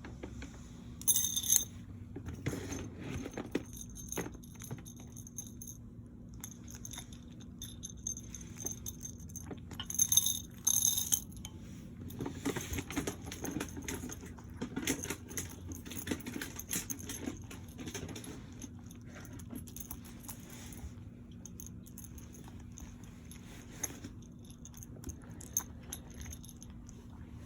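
Metallic jingling, like keys or a small bell, in two short loud bursts about a second in and again around ten seconds in. Between them come scattered small clicks and rustles over a steady low hum.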